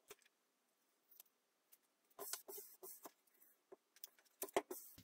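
Faint paper rustling and light taps as a paper pattern is laid onto a glued wooden board and pressed down by hand. It starts as a few scattered clicks and grows busier from about two seconds in.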